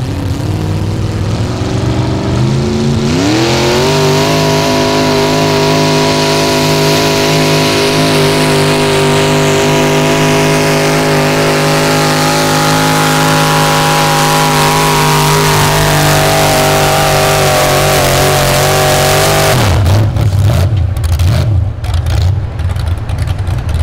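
Pickup truck engine at full throttle while pulling a weight-transfer sled. Its pitch climbs sharply about three seconds in and holds high and nearly steady for about sixteen seconds, then drops off suddenly when the throttle is let off, leaving a lower, uneven engine sound near the end.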